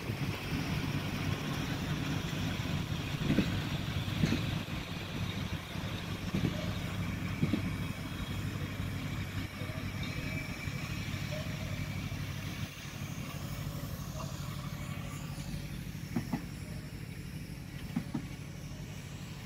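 Passenger train coaches rolling past on steel rails: a steady low rumble from the wheels, with scattered sharp clacks as the wheel sets cross rail joints, slowly growing fainter toward the end.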